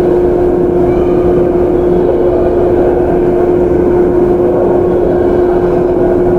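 Japanese 413-series resistor-control electric train car (KuMoHa 413-3): a steady hum at one unchanging pitch over a rough rumble.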